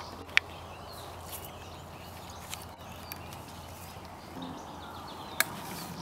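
Young bulls grazing right at the microphone: soft, irregular tearing and ticking of grass. Two sharp clicks, one just after the start and one about five seconds in, sound over a steady low rumble.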